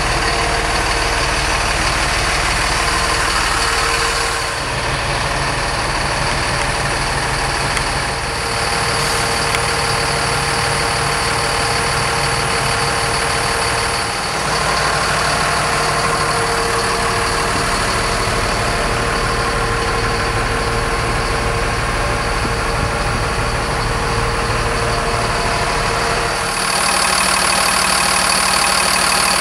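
A 2006 Freightliner M2 box truck's 230-horsepower Mercedes diesel engine idling steadily, its tone shifting abruptly a few times.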